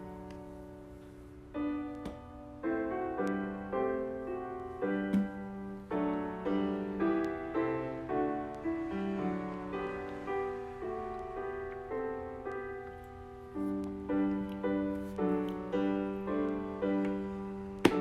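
Soft instrumental piano music, notes struck at a gentle pace and left to ring and fade.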